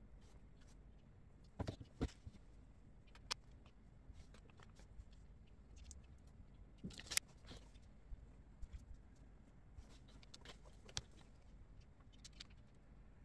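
Scattered light clicks and knocks of plastic under-sink organizer parts being handled and snapped together by hand, with a few sharper clicks around two seconds and seven seconds in.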